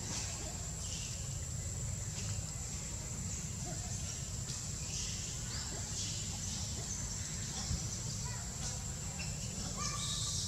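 Tropical forest ambience: a steady high-pitched insect drone over a constant low rumble, with scattered faint animal sounds and a short run of chirps near the end.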